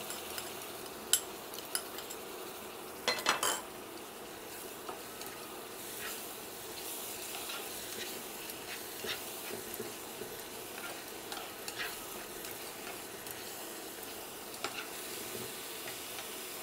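Coriander, green chilli and garlic paste sizzling in hot oil with fried onions in a non-stick frying pan, stirred with a silicone spatula: a steady sizzle with scattered taps and scrapes of the spatula, and a short run of knocks about three seconds in.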